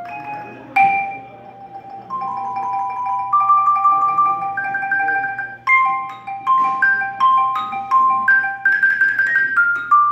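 Marimba played with mallets, solo. Held notes are sustained by rapid rolls through the first half, then separately struck notes follow from a little past the middle, a low note returning between higher ones.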